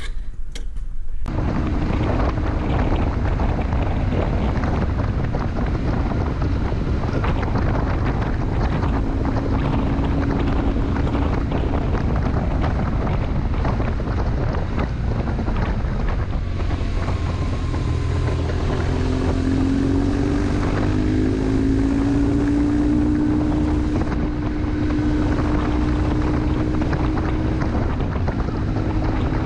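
Motorcycle riding at road speed, heard as heavy wind rushing over the microphone on top of the BMW R1150 GS Adventure's boxer-twin engine. It comes in abruptly about a second in, after a brief quieter moment with a couple of clicks.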